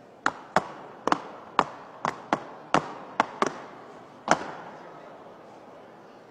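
Drill team beating out an uneven rhythm of about a dozen sharp smacks, each with a short echo from the hall, stopping about four and a half seconds in.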